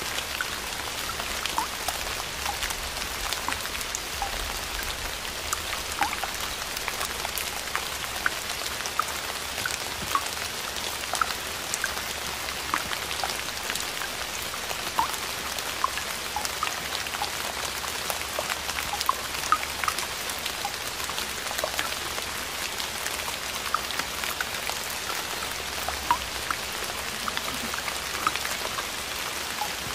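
Kinetic sand squeezed and crumbled by hand: a steady soft hiss with many small crackles and pops throughout.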